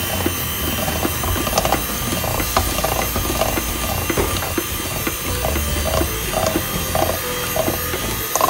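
Electric hand mixer running steadily, its beaters whisking waffle batter in a stainless steel bowl, with frequent irregular clicks as they knock against the bowl.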